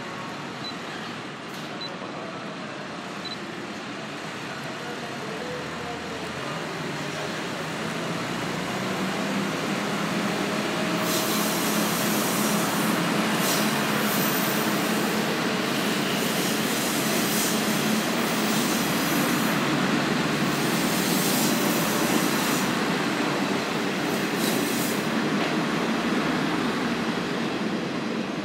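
Kanto Railway KiHa 0 series diesel railcars, a four-car train, pulling away from a station. The diesel engines run and grow louder over the first ten seconds or so as the train gets under way, then stay loud, mixed with the noise of the wheels on the rails as the cars pass.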